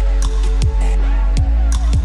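Background electronic music with heavy bass and a steady beat: deep bass notes that drop in pitch on each beat, with sharp percussion hits on top.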